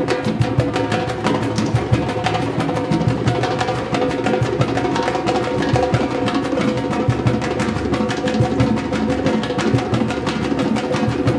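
Street percussion group drumming a fast, even rhythm: stick-played strapped metal-shell drums together with hand drums such as a large djembe and a cajón.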